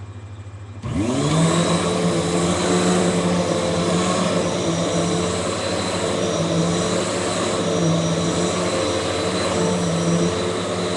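Hoover WindTunnel T-Series Pet bagless upright vacuum cleaner switched on about a second in, its motor spinning up with a rising whine and then running steadily at full speed.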